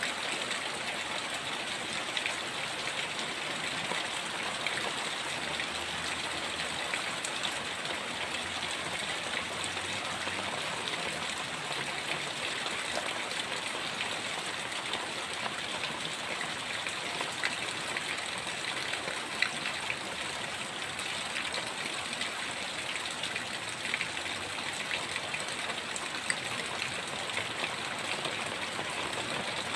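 Heavy rain falling steadily, a dense even hiss flecked with the small ticks of drops striking nearby surfaces.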